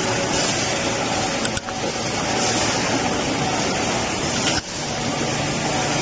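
Injection moulding machine running with a steady, even hiss and low hum of machine noise, which drops out briefly twice, about a second and a half in and again about four and a half seconds in.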